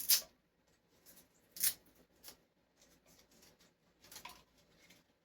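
Short rustling and scraping handling noises as the airbrush compressor's power cord is unwound: a sharp rustle at the start, another about a second and a half in and a third near four seconds, with light scratching between. The compressor is not running.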